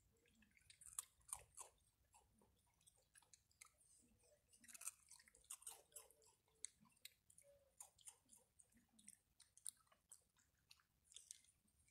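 Quiet raccoon chewing: irregular crunches and wet smacks as it bites and chews dry food, with louder clusters about a second in and around the middle.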